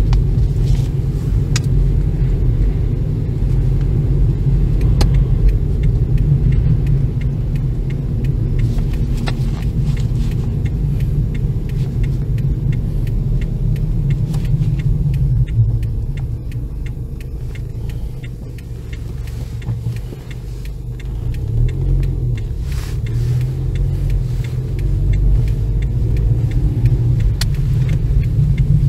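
Road noise heard inside a moving car's cabin: a steady low rumble of engine and tyres on the road. It dips for a few seconds past the middle, then builds again.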